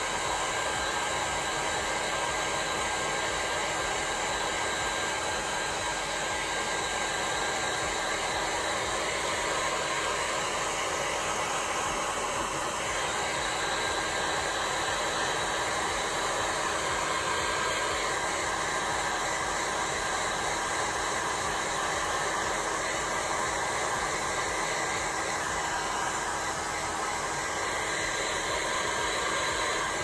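Heat gun on its high heat and high fan setting, fitted with a long extender nozzle, blowing steadily across wet epoxy resin to push it into waves. A steady rushing blow with a faint hum under it, unbroken throughout.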